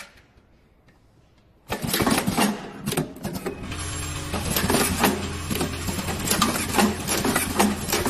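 Near silence for nearly two seconds, then the automatic power-cord plug crimping machine starts suddenly with busy, irregular mechanical clicking and clacking. A steady motor hum joins about three and a half seconds in.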